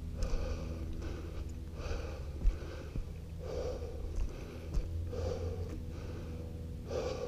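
A man breathing hard and audibly while walking, one breath about every one and a half to two seconds, over a low rumble of wind on the microphone.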